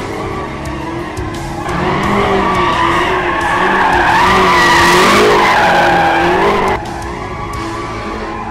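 BMW M5's tyres squealing through a drift, the squeal wavering in pitch. It grows louder about two seconds in, peaks, then cuts off abruptly near the end.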